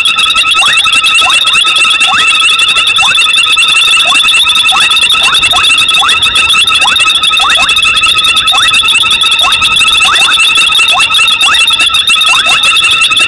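Night chorus of frogs at a waterhole: a dense, steady shrill trilling with many short rising calls repeating about twice a second.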